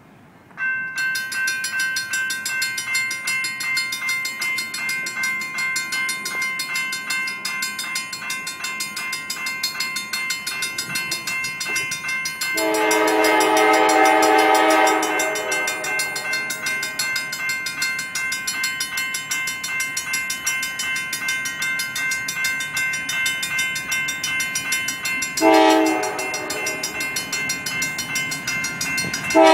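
Railroad grade-crossing bell starts ringing about a second in and keeps ringing steadily as the crossing activates. Partway through, an approaching Norfolk Southern freight locomotive's air horn sounds one long blast of several tones together, then a short blast near the end, with another blast beginning right at the end.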